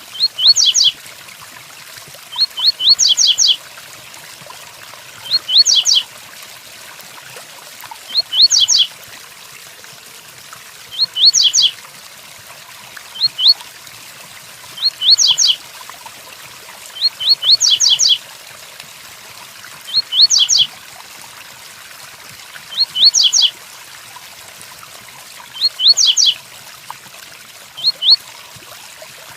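Double-collared seedeater (coleiro) singing the tui-tuí song: short phrases of a few quick, high, clear notes, repeated about every two and a half seconds. A steady hiss of rain runs underneath.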